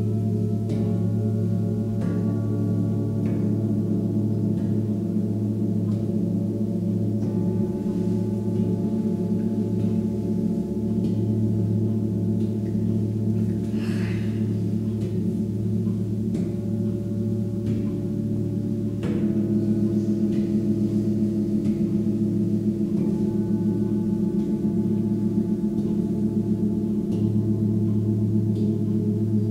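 Several seven-metal Tibetan singing bowls ringing together in long, overlapping tones, with a slow wavering beat in the deep hum. A bowl is struck every few seconds, and the strongest strike comes about two-thirds of the way in, after which the ringing grows louder.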